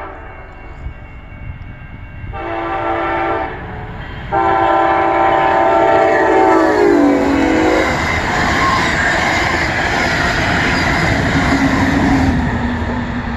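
Amtrak passenger train led by a Siemens SC-44 Charger locomotive sounding its horn at speed. A short blast comes about two seconds in, then a long one whose pitch drops as the locomotive passes. The cars then rush by with steady wheel noise, which fades near the end.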